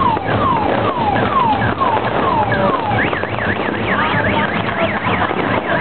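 An electronic siren sounding in repeated falling sweeps about twice a second, switching about three seconds in to a fast up-and-down warble, over the noise of a crowd.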